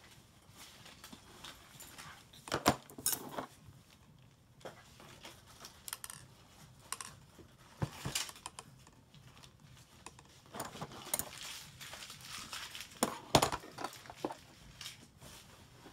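Scattered clicks and knocks of a screwdriver, small screws and the plastic housing of a percussion massage gun being handled as its motor-mount screws are taken out, loudest in a cluster about two and a half seconds in and again about thirteen seconds in.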